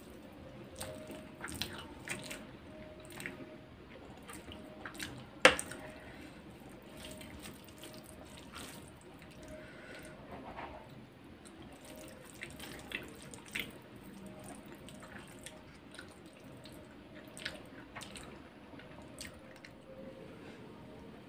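Wet eating sounds of chicken biryani eaten by hand: chewing, and fingers squishing rice and gravy in the tray, with scattered small clicks and one sharp click about five and a half seconds in.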